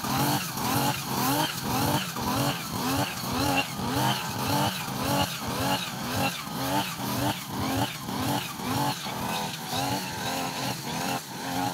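Backpack brush cutter's small petrol engine running as the cutter is swung through grass. Its pitch rises and falls in a steady rhythm about one and a half times a second.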